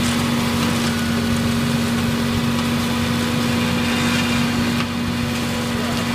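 Compact tractor running steadily under load, driving a 175 cm hammer-flail mower that is cutting through tall dry grass and weeds. It makes a constant hum with one strong steady tone over a rushing noise from the spinning flails.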